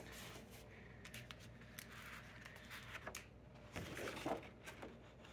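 Sheets of double-sided patterned scrapbook paper being turned over by hand: faint rustles and a few soft flicks as each page lifts and falls.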